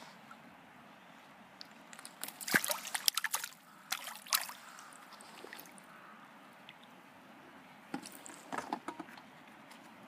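A hooked crucian carp thrashing and splashing at the water's surface close in: a loud burst of splashing about two seconds in, lasting a couple of seconds, and a shorter, weaker one near the end.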